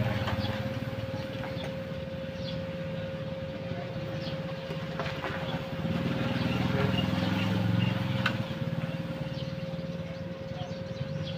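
Idling welding machines, a transformer welder and an inverter welder switched on but not welding: a steady electrical hum with a constant steady tone. A low rumble swells about six seconds in and fades two seconds later, and a few light clicks sound here and there.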